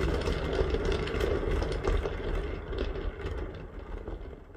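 Lazy susan turntable loaded with a painted stack of wood panels, spun by hand: a steady rumble with small rattles that starts suddenly and fades away from about three seconds in as the spin slows.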